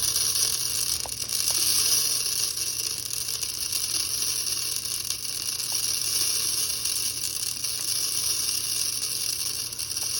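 Bird seed pouring through a funnel into a glass bulb container: a steady hiss of small seeds streaming down, with a few faint ticks.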